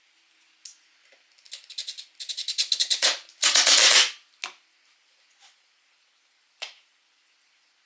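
Small hard objects being handled: a fast run of clicks, then a short dense rattle just past the middle, with a few single clicks around them.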